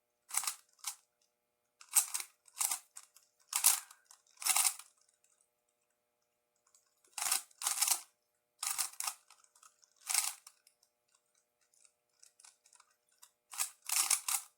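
Plastic 2x2 speedcube being turned fast, in short bursts of clacking turns with brief pauses between groups of moves.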